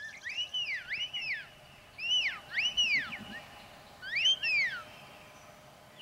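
Sheepdog handler's whistle commands to a working border collie: three calls, each of two clear notes that rise and fall, with short pauses between them.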